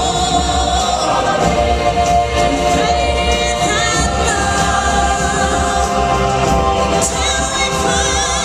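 Choir singing with instrumental backing and a steady low beat, in the style of a stage musical number.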